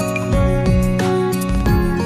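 Background music: gentle, soft instrumental tune with a steady beat.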